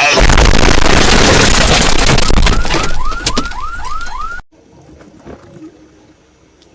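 A sudden, deafening, distorted blast of noise with a deep rumble under it, lasting about four seconds, with a quick string of short rising-and-falling squeals near its end, then cutting off abruptly. This is an exaggerated meme sound effect.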